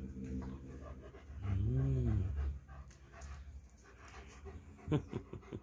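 A German Shepherd panting close by. About two seconds in, a low drawn-out moan rises and falls in pitch, the loudest sound here, and a short sharp sound comes near the end.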